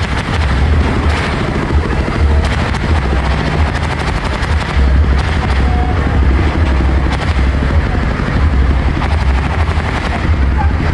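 Engine running steadily close by, with a deep rumble and a rapid, even pulsing beat.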